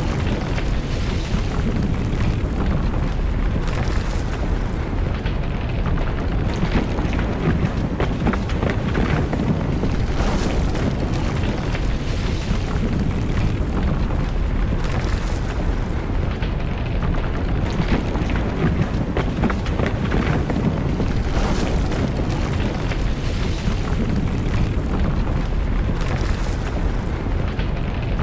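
Earthquake rumble sound effect: a loud, continuous deep rumble, with a brief surge of higher noise every two to three seconds.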